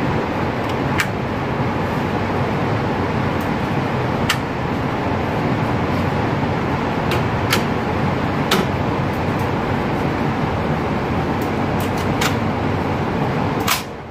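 Loud, steady rushing air noise from an indoor shooting range's ventilation system, with about a dozen faint, sharp clicks scattered unevenly through it.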